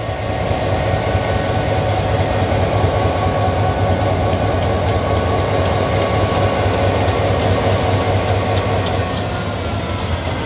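EMD diesel engine of an HGMU30 locomotive running at idle: a steady, even hum. From about four seconds in, a light ticking joins it, about three ticks a second.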